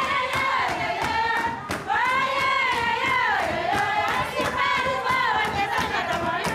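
Cape Verdean batuque: a group of women singing together in full voice, over a steady beat of hand percussion struck on the thighs and clapping.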